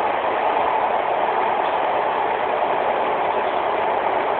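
Steady cabin noise inside the passenger saloon of a Class 156 Super Sprinter diesel multiple unit, from its underfloor Cummins diesel engine and running gear, an even rumble without distinct wheel clicks.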